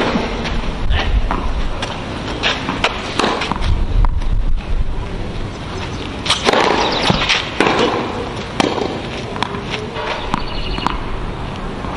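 Tennis ball struck by rackets and bouncing on a clay court, a string of sharp hits, with players' footsteps. The hits come closer together from about halfway through, as a serve starts a rally.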